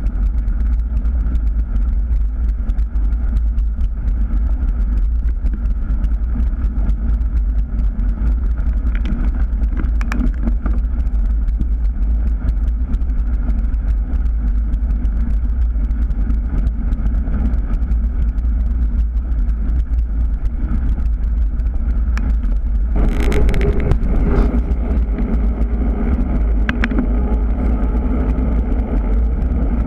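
Steady wind rumble and tyre noise on a moving bicycle's camera microphone while riding. About two-thirds of the way through the sound changes abruptly to a brighter rush with a faint steady hum.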